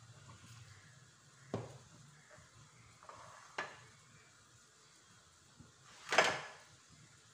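Kitchen dishes knocking on a countertop as a bowl and a plate are moved and set down: two light knocks, then a louder clatter about six seconds in.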